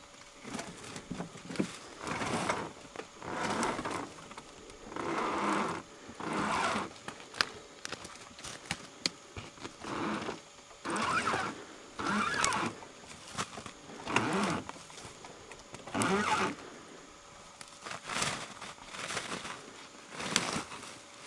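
A person breathing hard close to the microphone, one loud breath every one to two seconds.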